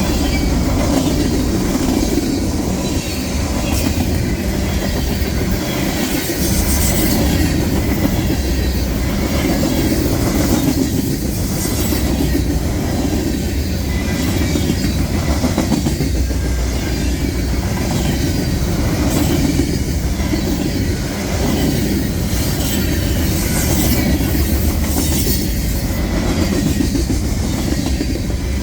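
Freight cars of a CSX mixed freight train rolling past on the near track, their wheels clacking over the rail joints, with wind buffeting the microphone.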